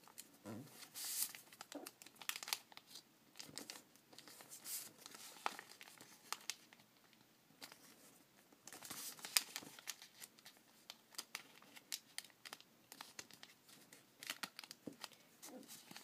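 Sheet of origami paper rustling and crinkling in the hands in short, irregular crackles as its corners are folded in to the centre point and the creases pressed flat with the fingers.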